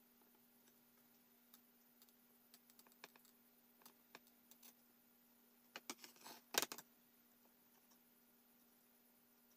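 Faint, sparse clicks and light scrapes of small metal tools working on a phone circuit board while a charging port is desoldered, with a brief louder cluster of clicks a little past halfway.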